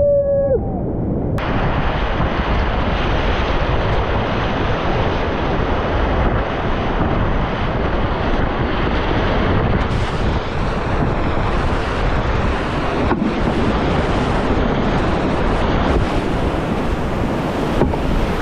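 Whitewater river rapids rushing steadily, with wind on the microphone.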